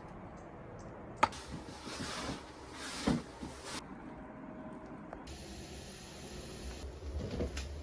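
A sharp click about a second in, then a few seconds of hissing with a dull thud partway through, giving way to a steady low rumble.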